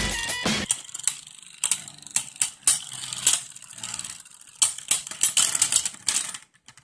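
Beyblade Burst spinning tops, Wyvron and Spryzen, clashing in a plastic stadium: a rapid, irregular run of sharp plastic-and-metal clicks and clacks over a faint rattle as the tops grind against each other. The sound cuts off abruptly near the end.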